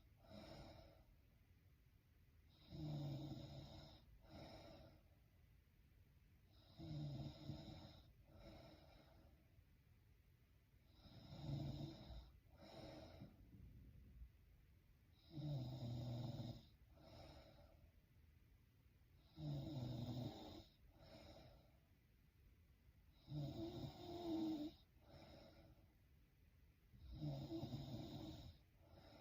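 A woman snoring in her sleep, a snore about every four seconds, each one followed straight away by a shorter second snore.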